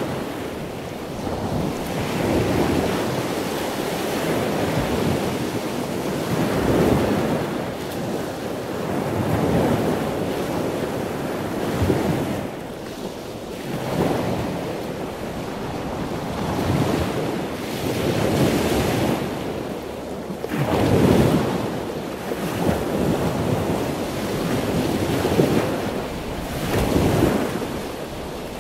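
Ocean waves breaking on a shore: a steady rushing noise that swells and fades every two to three seconds.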